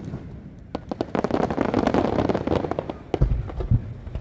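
Aerial fireworks display: a fast run of sharp cracks building into dense crackling about a second in, then two deep booms a little after three seconds.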